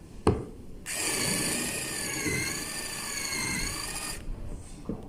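Jakemy 2-in-1 cordless electric screwdriver-drill at its turbo speed drilling into a piece of timber: a click, then a high motor whine for about three seconds whose pitch wavers as the bit works through the wood, stopping abruptly.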